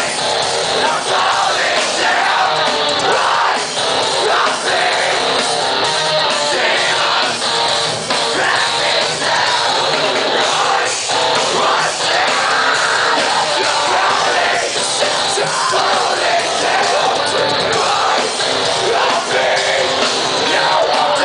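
Heavy metal band playing live at full volume, with sung and yelled vocals over the band, heard from within the audience.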